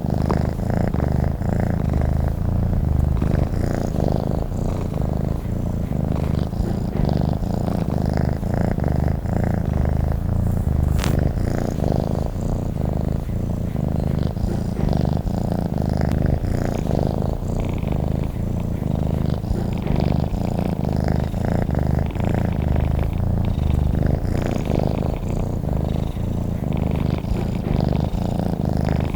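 Domestic cat purring steadily, a continuous low rumble that pulses rapidly with each breath in and out.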